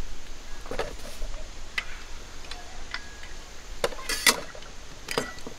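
Scattered clicks and knocks of metal griddle spatulas and mugs being set down and stowed on a cart's shelves, with the loudest clatter about four seconds in.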